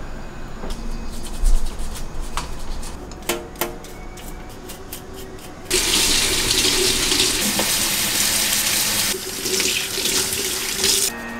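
Blue crabs being handled in a stainless steel kitchen sink, their shells clicking and knocking a few times. About halfway through, the tap turns on and water runs hard into the sink as the crabs are brush-scrubbed clean. The water breaks briefly once and stops just before the end.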